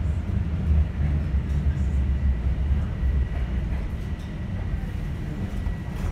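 Steady low rumble inside a Toronto Rocket subway car running on the track, with a faint thin high whine about halfway through.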